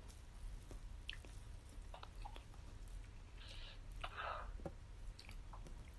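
Faint close-up chewing of a mouthful of ayam geprek (smashed fried chicken) and rice, with small wet mouth clicks and two short hissy sounds a little past halfway.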